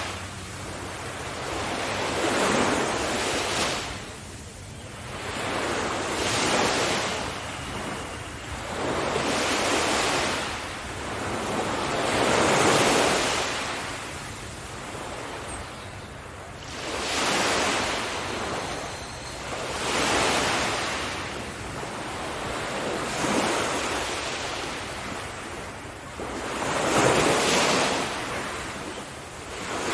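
Ocean surf: waves breaking and washing back in a steady rush of noise. Each wave swells and fades every three to four seconds.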